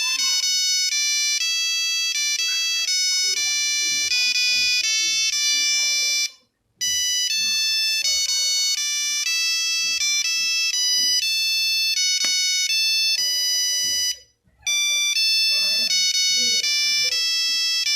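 Nokia 3310 monophonic ringtone playing a quick melody of short, buzzy beeping notes. The tune stops for a moment and restarts twice, about six and a half and fourteen and a half seconds in.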